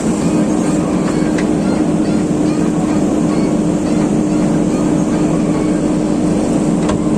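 JCB digger's engine running steadily at working revs, a continuous hum with a steady drone.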